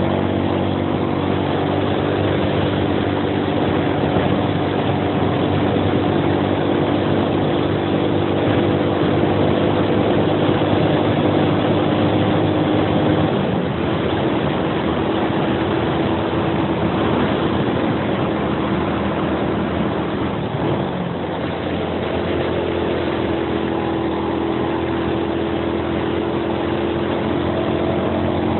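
Suzuki Axelo 125 underbone motorcycle's single-cylinder engine running steadily under load, climbing a hill, with wind rushing over the microphone. The engine note wavers and shifts about halfway through, then settles into a steady pitch again for the last few seconds.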